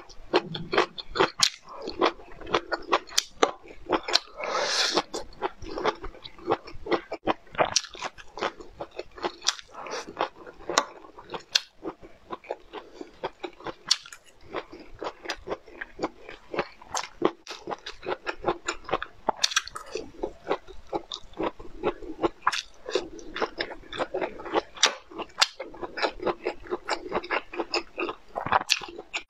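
Close-miked eating: a fast, dense run of crisp crunches and chewing as broccoli florets and a soft bun are bitten and chewed.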